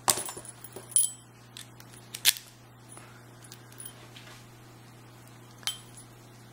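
Sharp metallic clicks and small taps of tools and parts against the Abus 72/40 padlock's core while it is being taken apart to pull its retaining clip. There are four distinct clicks with a brief bright ring, the loudest a little over two seconds in, and lighter ticks between.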